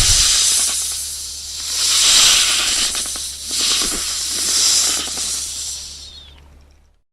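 Snake hissing: a loud hiss that swells and eases about three times, then dies away near the end.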